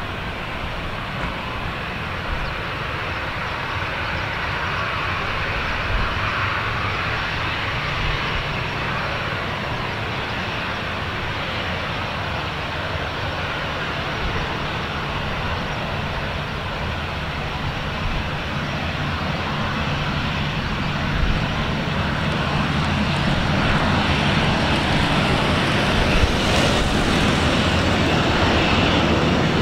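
Boeing 737-800's twin CFM56-7B turbofan engines running on the runway, a steady jet whine and rumble that grows louder over the last several seconds as power comes up for the takeoff roll.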